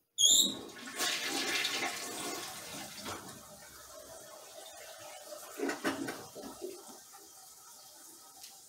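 Rushing water starting suddenly with a brief high squeak, strongest for the first few seconds and then fading away to a faint trickle.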